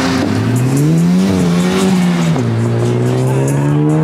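A car engine revving hard, its pitch climbing steeply over the first second, dropping suddenly about halfway through, then climbing again, with tyres squealing.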